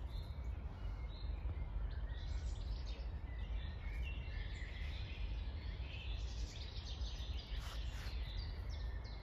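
Several birds singing and chirping, short high trills and calls, over a steady low rumble of distant city traffic.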